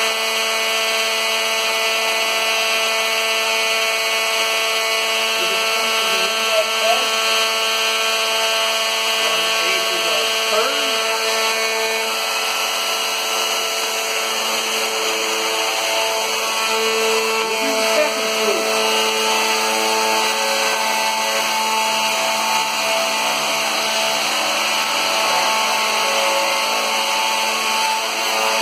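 Plunge router running in a router jig, cutting a shallow concave flute along a wooden baluster: a steady, loud whine of several tones that wavers briefly in pitch now and then as the bit works through the wood.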